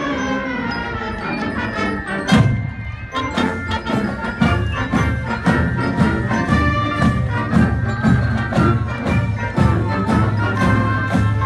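Marching band playing while on the march: woodwinds and brass over drums. A loud drum hit comes about two seconds in, and a steady beat carries on after it.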